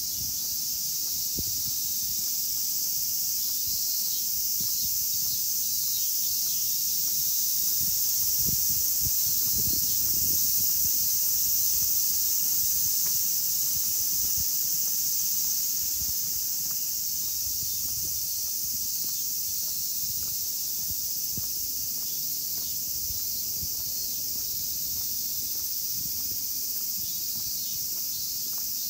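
A chorus of cicadas singing steadily in the park trees, a dense high-pitched drone that swells a little about a third of the way in. Soft footsteps on the paved path sound faintly underneath.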